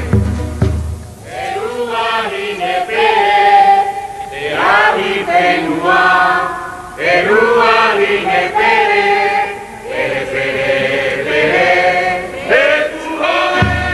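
A group of voices chanting together in Tahitian style, holding long notes that slide up and down in phrases of a few seconds, mostly unaccompanied. Deep drum beats sound in the first second and come back in just at the end.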